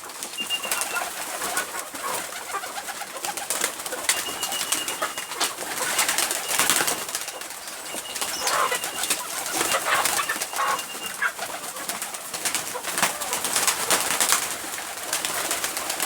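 Pigeons cooing and moving about in a coop, with a dense patter of small clicks and rustles throughout. A thin, high-pitched note comes and goes about five times.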